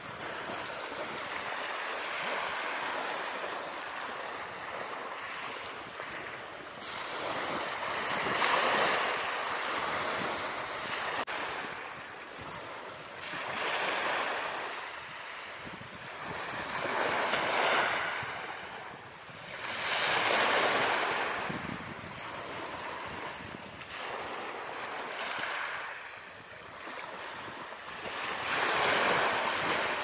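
Ocean surf sound effect: waves washing in and drawing back, the rush rising and falling every few seconds.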